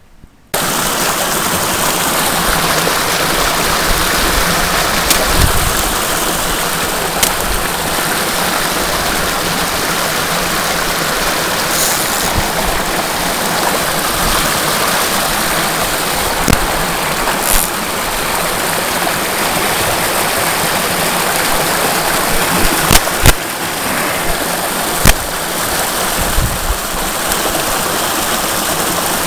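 Rushing water of a small stream cascade, a steady, dense noise that starts abruptly about half a second in. A few brief sharp knocks are heard now and then over it.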